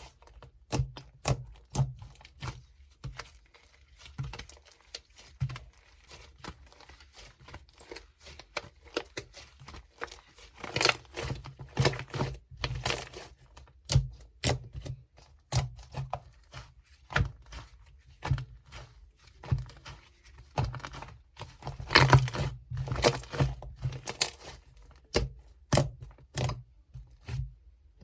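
Slime being played with by hand: irregular sticky pops, clicks and crackles, now sparse, now in quick clusters.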